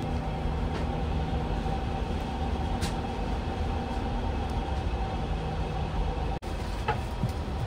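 Steady machinery hum of a powered-up Airbus A350 cockpit: the ventilation and avionics cooling fans running, with a steady mid-pitched tone over a low rumble. The sound briefly cuts out about six seconds in.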